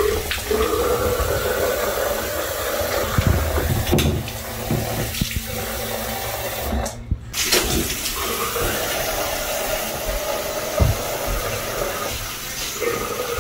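Bathroom tap running into a sink, the water splashing in the basin as hands are rinsed under it, with a brief break a little past halfway.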